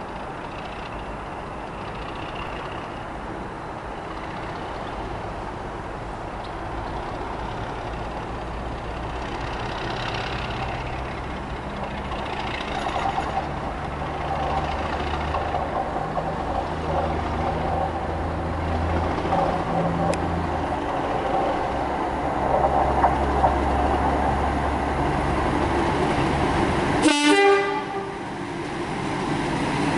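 Class 37 diesel-electric locomotive 37800 approaching with its English Electric V12 diesel engine rumbling, growing steadily louder as it nears while towing a dead Class 323 electric unit. The locomotive's horn sounds in the middle stretch. Near the end comes a brief loud rushing burst.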